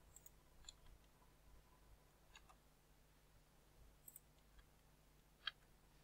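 Near silence with a few faint clicks of a computer mouse and keyboard, the sharpest about five and a half seconds in.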